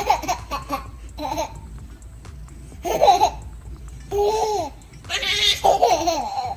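A baby laughing and squealing in short bursts, about one a second, with a longer run of laughter near the end.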